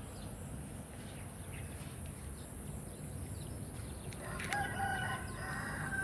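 A rooster crowing once, one drawn-out call starting about four seconds in, over a steady low background rumble.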